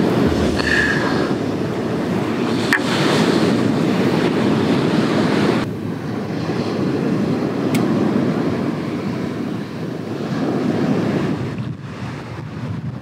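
Sea surf washing ashore in slow swells, with wind rumbling on the microphone.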